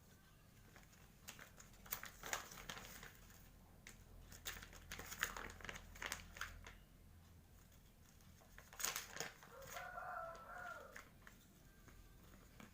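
Crinkling of a plastic zip-lock snack bag being handled, in three bouts of crackling. Around ten seconds in there is a short pitched call.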